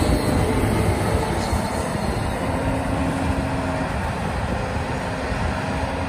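John Deere S-series combine harvester running under load while harvesting wheat: a steady engine and threshing-machinery drone with a faint whine, slowly fading as the combine moves away.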